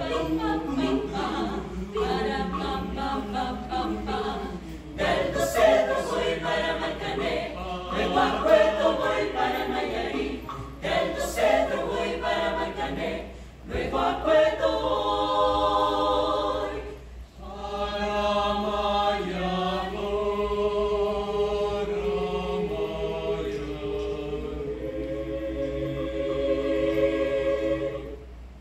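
Mixed choir of men's and women's voices singing a cappella. In the last part it holds long sustained chords, which stop shortly before the end.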